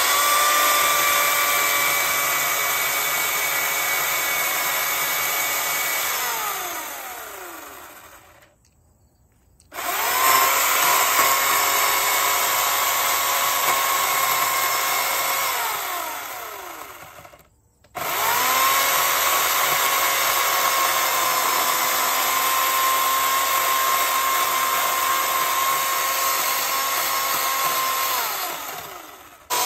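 Electric chainsaw cutting into a tree trunk: the motor whines steadily under load, then winds down with a falling pitch when the trigger is released. This happens three times, each run starting suddenly after a brief pause.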